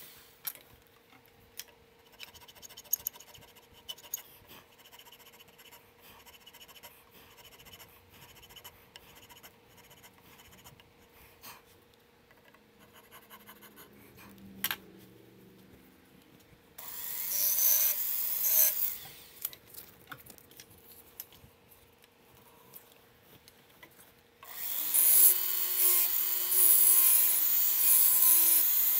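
Checkering tool cutting lines into a 1911 grip panel: a short run of rasping strokes about two-thirds of the way through, and steady rasping again over the last few seconds. Small clicks and handling noises fall in the quieter stretch between, as the panel is repositioned.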